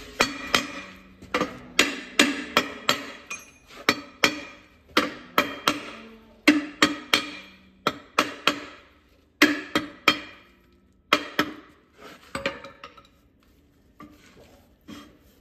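Hammer blows on a Massey Ferguson 135 tractor's rear brake drum, about two a second with short pauses. Each strike rings metallically, knocking a drum that is tight on the hub to free it. The blows stop a couple of seconds before the end.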